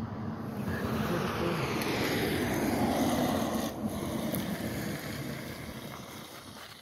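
A vehicle passing on the road: its engine and tyre noise swells to a peak about three seconds in, slides down in pitch as it goes by, then fades away.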